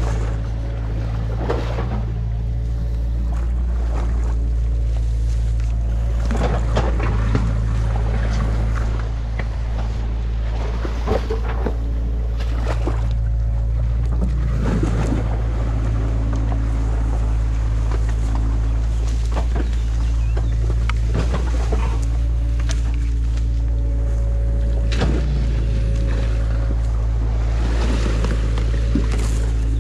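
Excavator's diesel engine running at a steady idle, overlaid by repeated snaps and rustles of sticks and mud being pulled out of a beaver dam by hand.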